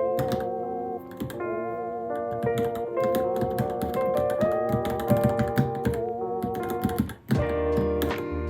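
Fast, irregular typing on a Varmilo Minilo keyboard, a steady patter of key clicks. Background music with held, wavering notes plays underneath, pausing briefly just after seven seconds before a low bass line comes in.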